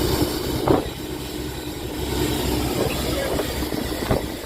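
Fishing boat's engine running steadily, a low rumble with a held hum, under a haze of wind and sea noise. There are two short thumps, one about a second in and one near the end.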